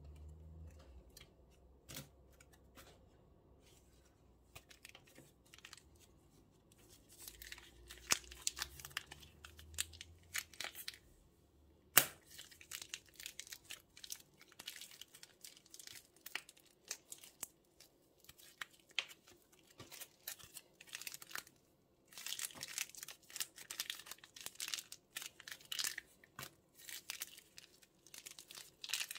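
Plastic bags crinkling and tearing as they are handled, in irregular crackly bursts after a few quiet seconds of small clicks. There is one sharp click about twelve seconds in.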